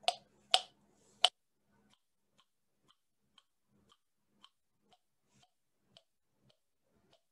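Silicone Jawzrsize jaw exerciser clicking in the mouth as it is bitten down in repetitions, about two clicks a second; the clicks are loud for the first second or so, then faint.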